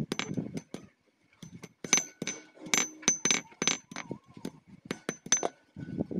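Hammer blows on thin steel wire lying on a steel block anvil: a quick, irregular run of sharp metallic clinks, each with a short ring, with a pause about a second in.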